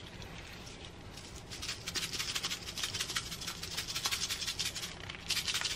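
Gloved hand rubbing seasoning into the skin of a raw whole chicken on a metal tray: a quick, scratchy rubbing and patting that starts about a second and a half in and keeps up to the end.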